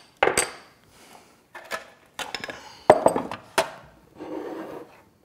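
Stainless steel hotel pans knocking down onto a wooden board, with several sharp clatters, then a rasping scrape near the end as a pan slides across the wood.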